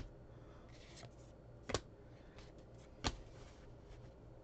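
Topps Heritage baseball cards being handled: cards sliding against one another in a stack, with three sharp taps spread about a second and a half apart.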